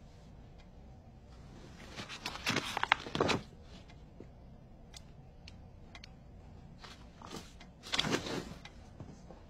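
Rustling and shuffling of a person moving about on a bed, in two short bouts, about two seconds and about eight seconds in.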